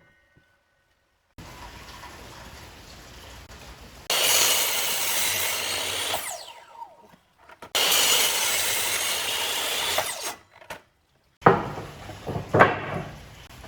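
A power tool cutting or working wood in two loud runs of about two seconds each, the first winding down with a falling pitch. A few sharp knocks of wood follow near the end.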